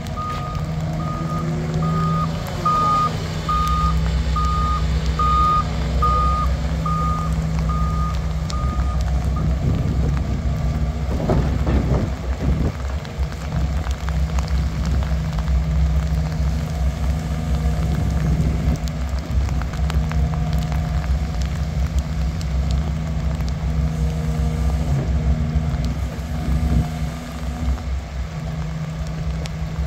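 2021 Doosan DX225LC-7 crawler excavator's diesel engine and hydraulics running steadily as the machine works, the engine note picking up a few seconds in. Its travel alarm beeps at a steady pace, a little faster than once a second, for the first nine seconds or so, then stops.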